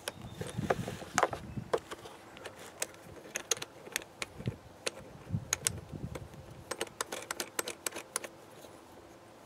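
Irregular clicks and plastic rattles of a high-pressure hose fitting being pushed and twisted into the outlet of a plastic electric pressure washer, with low handling bumps.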